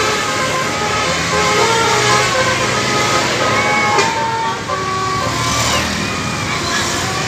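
Bus basuri (telolet) musical air horn playing a tune of held notes, several sounding at once and stepping up and down in pitch, over the low noise of the bus.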